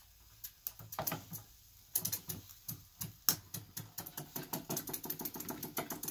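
Wilesco toy steam engine starting from cold: scattered irregular clicks at first, then from about two seconds in a quickening, steady clatter of about six strokes a second as it picks up.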